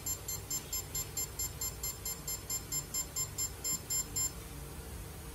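Electronic beeper on an automatic phone-screen glass-cutting machine, sounding a rapid run of short high beeps at about four a second that stops about four seconds in.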